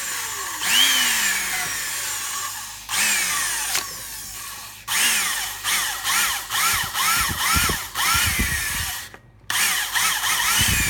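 Corded 220 V electric drill switched on again and again, its motor winding up and then slowing down each time the trigger is released, while its toothed chuck is cleaned with a strip of abrasive cloth. In the middle the trigger is blipped quickly, about two short runs a second.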